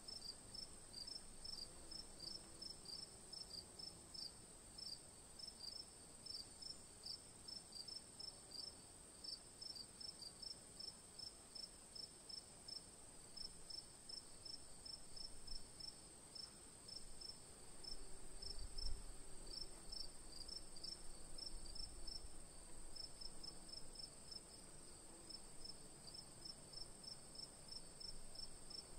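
Faint insect chirping, cricket-like: short high chirps repeating about three times a second, often in pairs, over a steady high whine.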